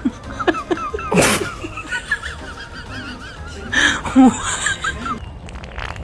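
Comedy sound effects: a string of short, wavering squeaky chirps broken by two loud hissy bursts, one about a second in and another near four seconds, with music underneath.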